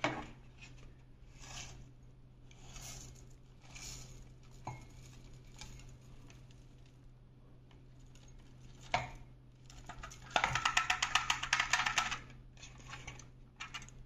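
Collected rolled oats being shaken out of a Roidmi EVE Plus robot vacuum's plastic dust container, after a few faint knocks and a sharp click. The flakes pour out in a dense rapid rattle for about two seconds near the end, with a short second pour just after.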